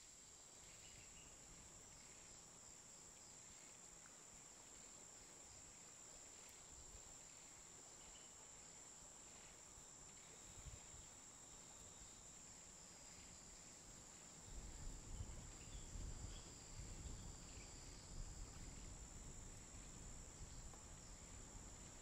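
Faint, steady high-pitched trill of insects, one unbroken note, with a few faint chirps; from about two-thirds of the way in, wind rumbles and buffets the microphone.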